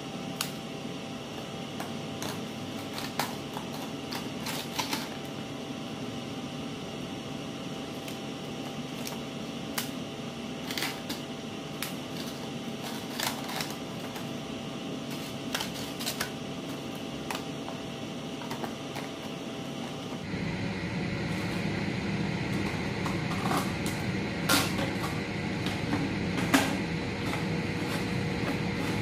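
Crisp fried prawn crackers being pushed and dropped into a plastic jar, giving scattered light clicks and crackles over a steady background hum. About two-thirds of the way through the hum changes and grows a little louder.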